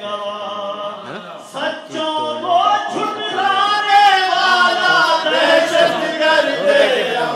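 A man singing a manqabat, a devotional poem in praise of a saint, unaccompanied, with long held notes through the middle.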